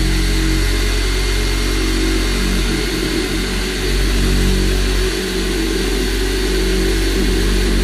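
Black & Decker electric jigsaw running steadily as it saws through a board along a straight-edge guide jig. Its motor drone dips briefly a couple of times near the middle.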